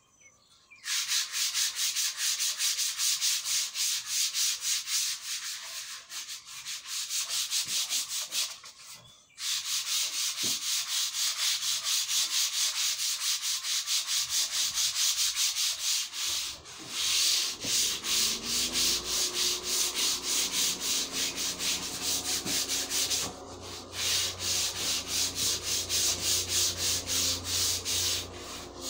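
Hand sanding: a sanding pad rubbed back and forth in quick, even strokes along a long rounded beam, a steady scratchy hiss broken by a few short pauses. About two-thirds of the way through, a low steady hum joins underneath.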